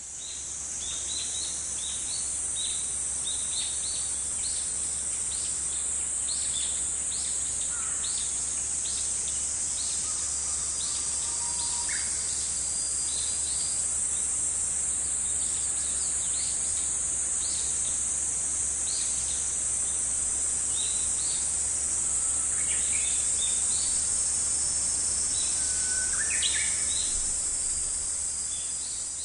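Nature ambience of insects droning steadily at a high pitch, with many short bird chirps scattered throughout and a faint low hum underneath. It fades in at the start and fades out at the end.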